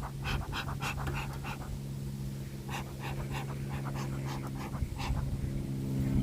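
A person's quick, heavy breathing close to the microphone, short breaths about three a second with a pause midway, over a steady low hum.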